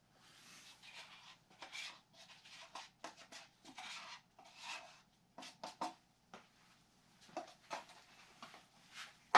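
Irregular scratchy rubbing and brushing strokes from hand work on a wet carbon-fibre and epoxy layup, with a sharp click near the end.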